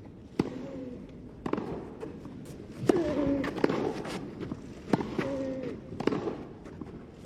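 Tennis rally: a ball struck back and forth by rackets, about six sharp hits a second or so apart, several of them with a short grunt from the player.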